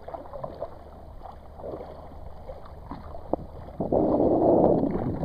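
Kayak paddling: paddle blades dipping and splashing irregularly in the water, with a single knock a little over three seconds in and a louder rushing splash for about a second near the end.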